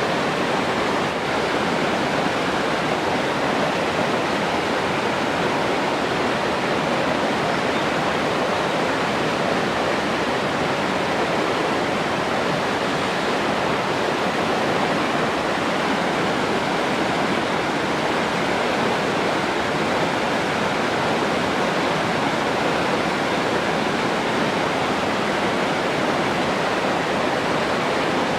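Steady rushing water, a continuous even hiss like a waterfall or fast stream, unchanging throughout.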